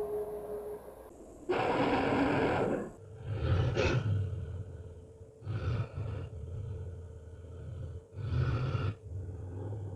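Werewolf vocal sound effects: a held howl trails off in the first second, then a long loud growl is followed by three shorter, deep growls a couple of seconds apart, with rough breathing between them.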